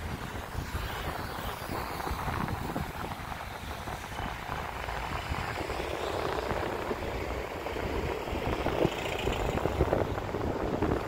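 Road traffic going by, with wind rumbling on the microphone.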